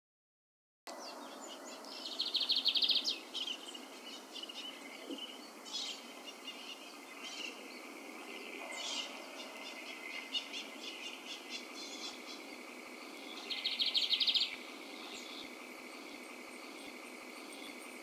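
Lined seedeater singing: a fast, buzzy, high trill about two seconds in and again about thirteen seconds in, with short scattered notes between.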